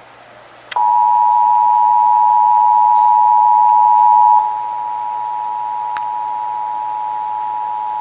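Emergency Alert System attention signal: the two-tone alert (853 and 960 Hz sounded together) comes on as one steady tone just under a second in and drops in level about four seconds in. It announces that an EAS message, here the required monthly test, is about to follow.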